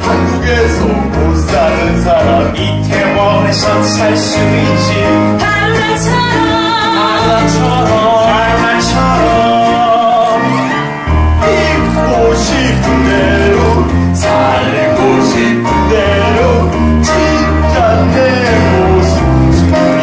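Live musical-theatre song: singing over band accompaniment with a steady, moving bass line.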